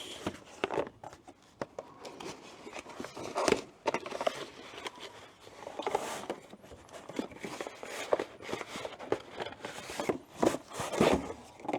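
A small cardboard box being opened and the packing inside handled: irregular rustling, crinkling and light knocks, with a few louder handling noises.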